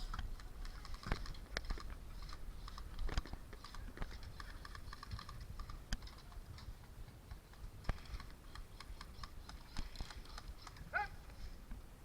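Scattered sharp clicks and taps with rustling, from an airsoft player's gear and movement, over a low rumble of handling noise on the body-worn microphone; a brief chirp sounds near the end.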